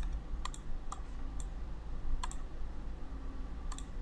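Computer mouse button clicks: about half a dozen sharp, scattered clicks, some in quick pairs, as text is selected and toolbar buttons are clicked.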